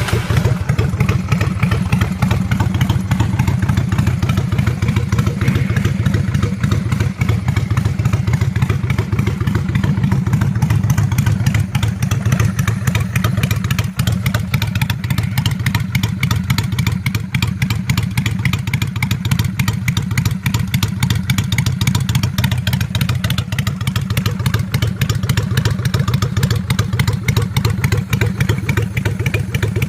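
Honda VLX 600 Shadow V-twin motorcycle engine running at a steady idle through Backdraft pipes packed with a cut-down stock baffle, its carburettor freshly rebuilt with a performance jet and velocity stack.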